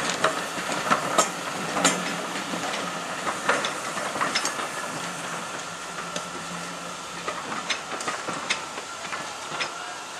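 Railway coaches rolling past on jointed track, their wheels clicking irregularly over the rail joints under a steady rumble. The sound slowly fades as the train draws away.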